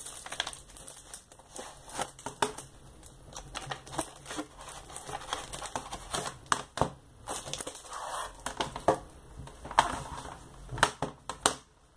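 Plastic CD jewel cases being handled: irregular clicks and knocks as the cases are pulled out of a box set and set down against each other and the table, with rustling between them.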